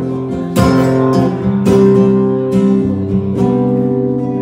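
Acoustic guitar strummed by hand, about five chord strokes roughly a second apart, each left ringing.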